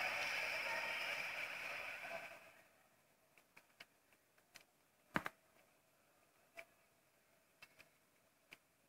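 Music from a TV sports broadcast, fading out about two and a half seconds in. Then near silence, broken by about a dozen faint, sharp clicks, the loudest a little past halfway.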